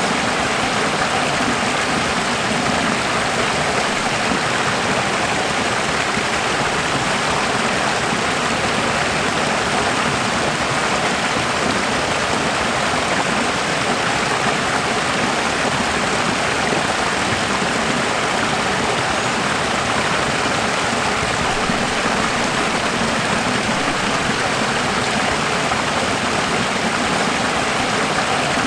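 Running water rushing steadily and evenly.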